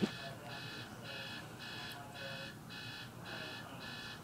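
Electronic beeping, a regular pulse of about two beeps a second, with a single knock right at the start and a baby's faint vocalising in between.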